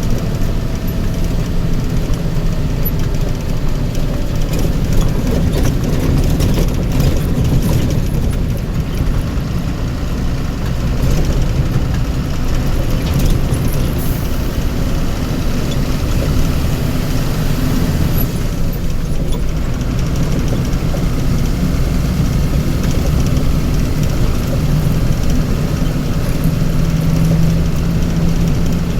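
Motor vehicle engine running steadily: a constant low rumble with road noise over it.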